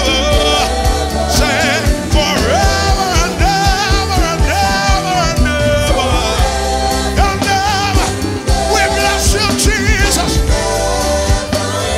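Live gospel worship band with vocals: a lead singer and backing singers over drums, congas, bass guitar, electric and acoustic guitars and keyboard, the singers holding long wavering notes over a steady beat.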